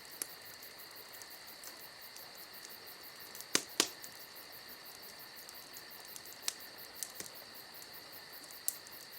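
Faint steady high-pitched hum over a low hiss, with a few sharp clicks, two louder ones close together near the middle.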